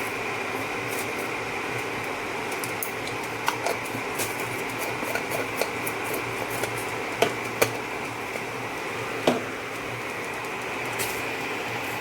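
Light clinks and taps of a spoon against small bowls and containers as spices and salt are measured out and mixed. The few sharpest clinks come about seven and nine seconds in, over a steady background hum from the running cooktop.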